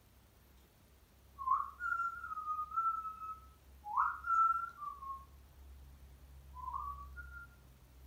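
African grey parrot whistling: two longer whistles that each swoop up into a held note, followed by two short whistles near the end.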